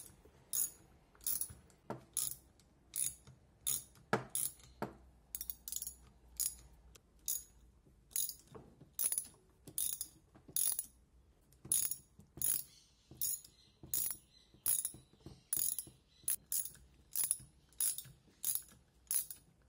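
Socket ratchet clicking in a steady run of sharp clicks, about two a second, as the bolts of a cylinder head's water-jacket cover are turned out.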